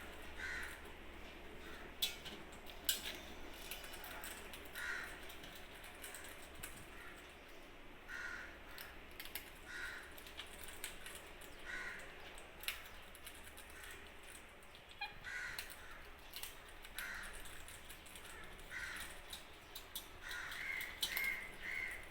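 Birds at a feeding spot giving short, harsh squawks or caws, repeated every second or two, with a quick run of calls near the end and a few sharp clicks in between.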